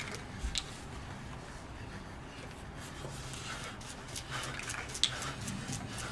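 Small objects handled on a stage floor: faint scraping and scattered light clicks, with a sharper click just after the start and the loudest about five seconds in.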